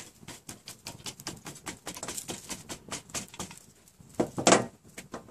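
Small twig fire crackling in a metal hobo stove, with rapid, irregular pops and snaps; a louder crunching clatter comes about four and a half seconds in.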